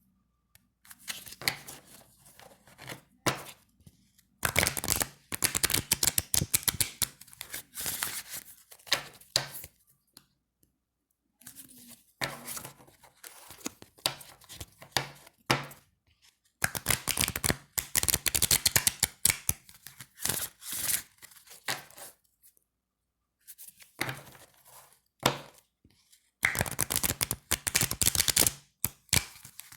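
A deck of thin, slick playing cards being shuffled, riffled into a rapid flutter of clicks in bursts of several seconds, with short pauses and a few single taps between them.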